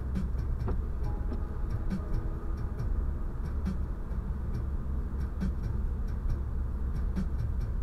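Car cabin road noise heard through a windshield-mounted dashcam microphone while driving in rain: a steady low rumble, with irregular ticks a few times a second from raindrops striking the glass.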